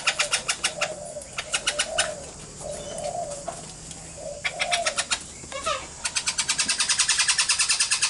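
Juvenile princess parrot begging to be fed by a parent: rapid, evenly repeated chattering calls, about eight a second, in short bursts at first and then continuous from about six seconds in.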